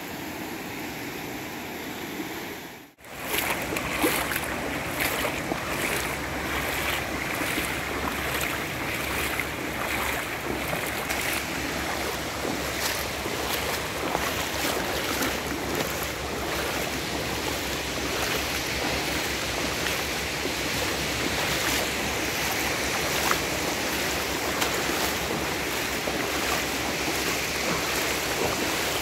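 Small sea waves washing in over a shallow, flat beach: a steady surf wash that grows louder after a cut about three seconds in.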